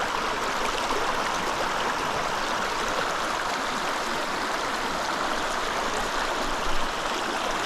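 Creek water running steadily, an even rushing without breaks.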